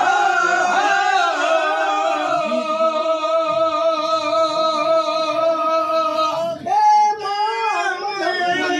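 A man's voice singing a devotional song to the goddess in long, drawn-out notes, with one note held for several seconds before a short break and a new phrase.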